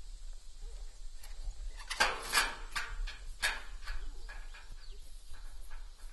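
Metallic clinks and rattling from a metal pasture gate's latch hardware worked from horseback, loudest in a burst about two seconds in with two more sharp clinks soon after, then lighter scattered clicks as the horse steps.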